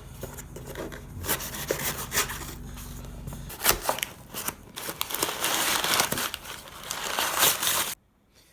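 Packaging being handled and opened: irregular crinkling and rubbing with many sharp clicks and knocks. It cuts off abruptly near the end.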